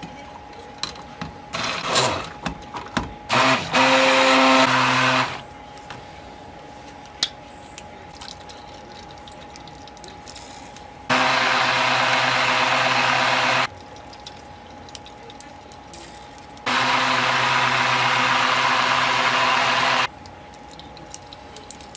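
Immersion blender mixing a pot of soap batter (oils and lye) toward trace, run in three bursts of two to four seconds each. There are a few light knocks before the first burst.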